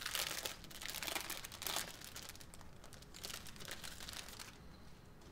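Clear plastic sleeve of paperwork crinkling as it is handled and opened. The crinkling is strongest in the first couple of seconds and fades near the end.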